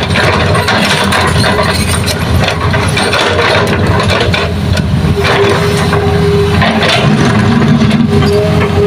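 Hitachi hydraulic excavator's diesel engine running loud and steady as the machine swings its loaded bucket and works the soil pile, with a steady whining tone coming in about halfway through.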